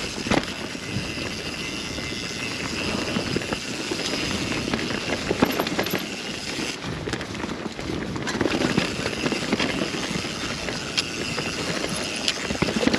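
Mountain bike riding down a woodland dirt trail: a steady rush of tyre noise over dirt and roots, with frequent clicks and knocks from the chain and frame rattling over bumps.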